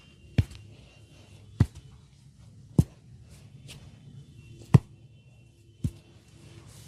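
Five sharp hand strikes on a head in a percussive head massage, spaced a second or so apart.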